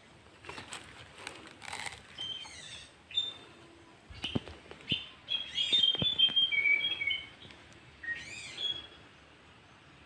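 Birds calling with short whistled notes and chirps, busiest a little past the middle, over the crackle and rustle of dry leaves and palm fronds being walked through.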